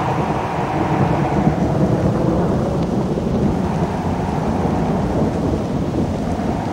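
Thunder breaking suddenly and rolling on in a long, uneven rumble over a steady hiss of rain: a thunderstorm recording.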